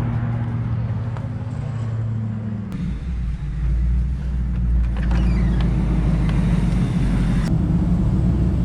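A car driving: a steady low engine hum with road noise that changes abruptly about three seconds in.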